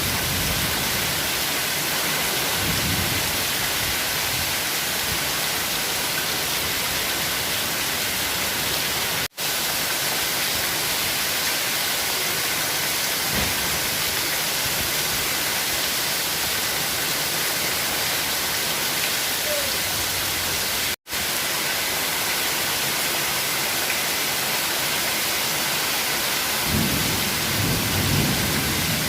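Heavy rain pouring down in a tropical thunderstorm, a dense steady hiss, with a low rumble of thunder near the end. The sound cuts out for an instant twice.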